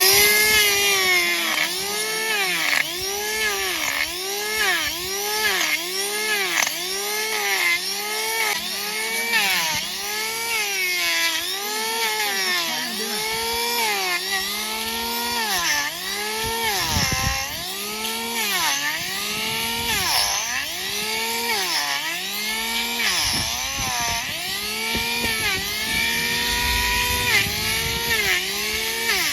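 Electric power tool grinding down a donkey's hoof; its motor pitch dips under load and recovers about once a second as it is pressed into the horn and eased off.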